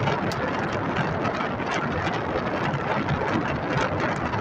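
Steady rushing noise inside a truck cab.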